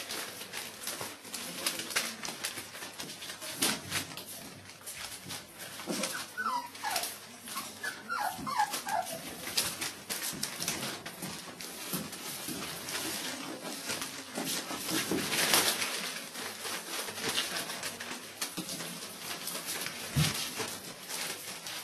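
Whippet puppies crinkling and rustling newspaper as they scramble over it, with a few short high whimpering squeals from the pups partway through.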